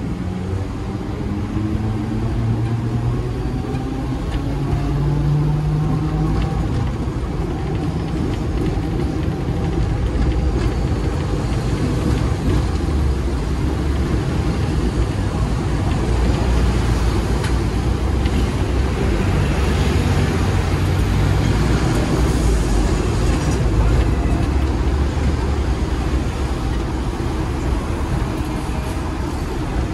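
Hong Kong double-decker electric tram running, heard from on board: a steady low rumble of the car on its rails, with a motor whine gliding in pitch in the first several seconds.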